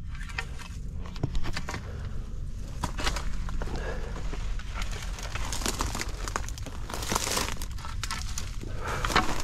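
Footsteps crunching and scraping on loose rock, dirt and dry brush on a steep slope: irregular crackles and scuffs over a steady low rumble.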